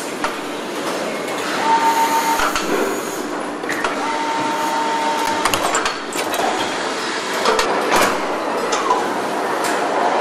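Car assembly-line factory noise: a steady mechanical din with scattered metallic clicks and clanks. A steady whine sounds briefly about two seconds in, and again for about a second and a half from about four seconds in.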